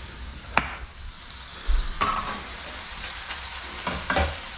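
Chopped ground beef frying in a skillet, a steady sizzle that grows louder about two seconds in. There is a sharp click under a second in and a few light knocks near the end.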